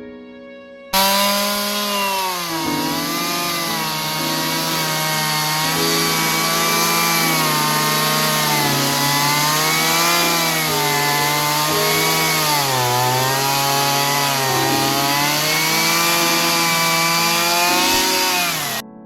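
Gasoline chainsaw running at high revs and cutting through fallen tree wood. It starts abruptly about a second in, and its engine pitch dips and recovers several times as the chain bites.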